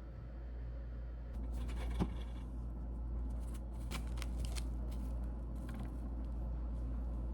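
Small handling noises: scattered clicks and rustles, with a sharp knock about two seconds in, over a low steady hum.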